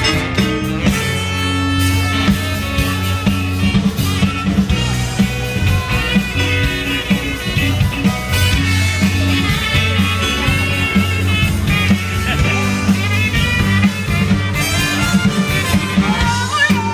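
Amplified live rock band playing through a festival PA, heard from among the audience: steady bass, drums and electric guitar.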